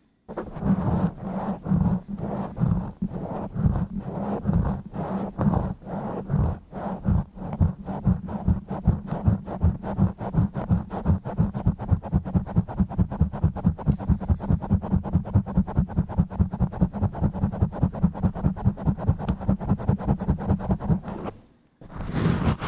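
A microphone being scratched and rubbed directly, close and rough, making deep muffled scraping strokes. The strokes start irregular, then settle into a fast even rhythm of about five a second, and stop briefly near the end.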